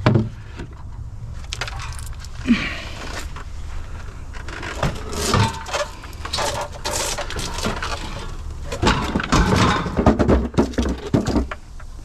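Scrap items being handled and shifted on a curbside pile: irregular knocking, clattering and rustling, with a cluster of louder knocks near the end, over a steady low rumble.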